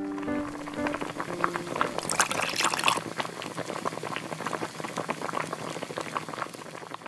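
Bubbling sound of a pot of stew at the boil: a dense crackle of small pops, loudest about two to three seconds in. It is a dubbed sound effect, since the stew is clay play food. The last plucked notes of a ukulele fade out in the first half second.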